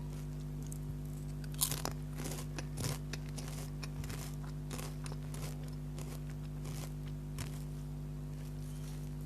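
Lay's potato chips bitten and chewed close to the microphone: a sharp crunchy bite about a second and a half in, then irregular crunching chews. A steady low electrical hum runs underneath.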